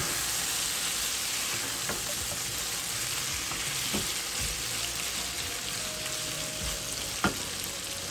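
Chicken pieces sizzling as they are browned in oil and spices in a ceramic-coated frying pan, stirred with a wooden spatula. The spatula knocks lightly against the pan a few times, sharpest about seven seconds in.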